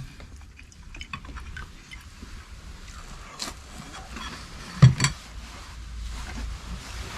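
Eating a meal: small scattered clicks and taps of eating at the table, with two sharp knocks close together about five seconds in.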